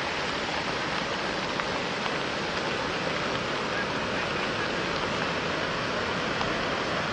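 Floodwater of the Kwisa river rushing over a road bridge and spilling across a low wall, a steady, even rushing without a break.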